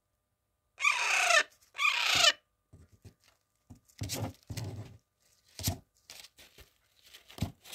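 Young pet parrot giving two loud, harsh squawks about a second in, each falling in pitch. Softer short knocks and scratchy sounds follow.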